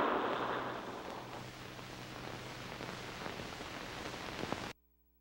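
Steady hiss with a faint hum from an old cartoon's film soundtrack. It fades down over the first second or two from a louder rush of noise, then cuts off suddenly near the end.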